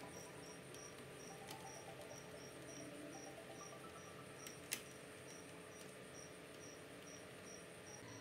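A cricket chirping faintly and steadily, about two to three short high chirps a second, with one sharp click a little under five seconds in.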